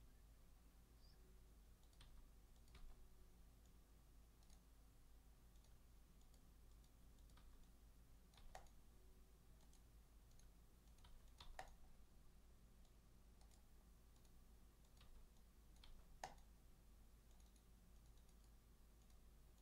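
Near silence: low room hum with a handful of faint, scattered clicks, like a computer keyboard and mouse being used.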